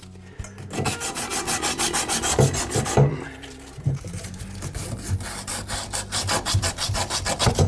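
Sand cloth scrubbing the end of a copper water pipe in quick, rhythmic back-and-forth strokes, with a short pause partway through. This cleans burrs and solder bumps off the pipe so a push-fit connector will seal.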